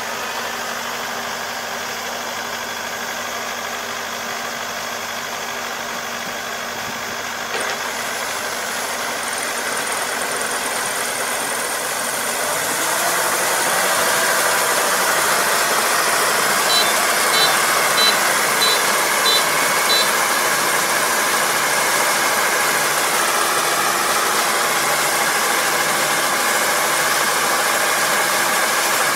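Combine harvester's engine running steadily while its unloading auger is swung out over a truck. It grows louder about a third of the way in, and a run of short, high beeps sounds around the middle.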